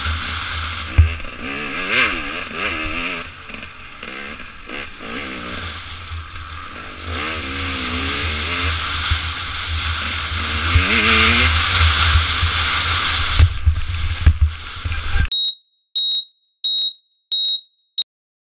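Dirt bike engine revving up and falling back repeatedly at race pace, with heavy wind rush on the microphone. A few sharp knocks come as the bike crashes, then the sound cuts off abruptly and five short high beeps follow.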